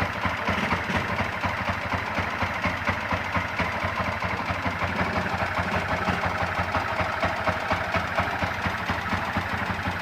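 Yamaha MX King 150's single-cylinder four-stroke engine idling steadily, with a ticking from the cylinder head. The owner puts the tick down to a worn, flattened valve, caused by a high-duration camshaft.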